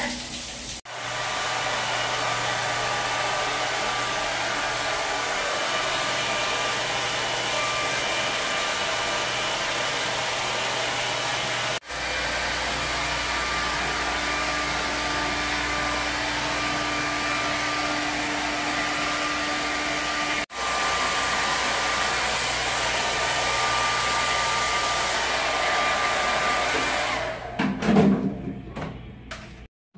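Handheld hair dryer running steadily, a continuous even rush of blown air that briefly cuts out twice and dies away near the end.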